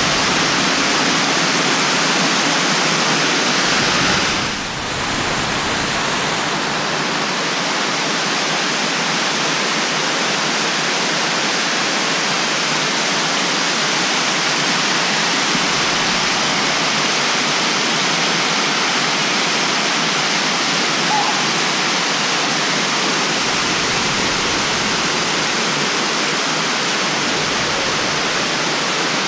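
A tall waterfall spilling down stepped rock ledges, heard close up as a loud, steady rush of falling water, briefly a little softer about five seconds in.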